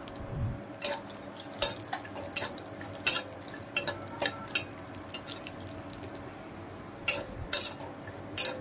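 Flat metal spatula scraping and clinking against a metal kadai while stirring cashews and raisins frying in oil: irregular scrapes and taps, with a quieter lull in the middle.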